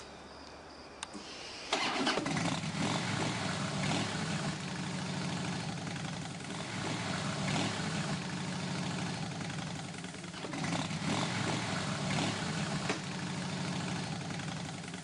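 Motorcycle engine starting about two seconds in, then running at idle, swelling a few times with light revs.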